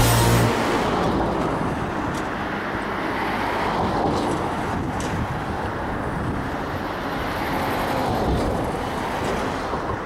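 Background music cuts off about half a second in, leaving a steady rushing outdoor ambience of wind and distant traffic-like noise.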